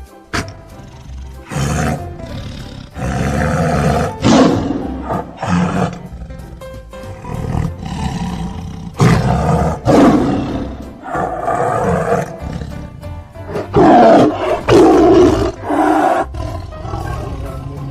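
Tiger roaring repeatedly: a series of loud, rough roars, each lasting about a second, with short gaps between them.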